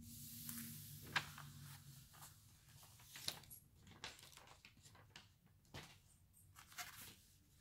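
Faint, scattered rustling and light taps of a sheet of paper being handled and moved about.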